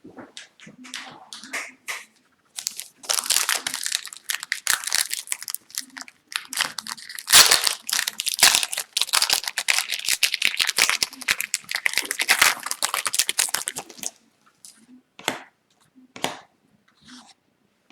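Foil wrapper of a hockey card pack being torn open and crinkled, a dense crackling that runs for about eleven seconds, with a few short crackles and ticks before and after it.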